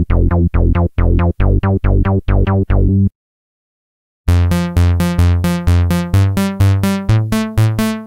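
Roland JUNO-60 software synthesizer bass presets playing bass lines. The "Rainforest Bs" patch plays short plucky notes, about five a second, and stops about three seconds in. After about a second of silence, the brighter, buzzier "Vintage Bs" patch plays a line of repeated notes.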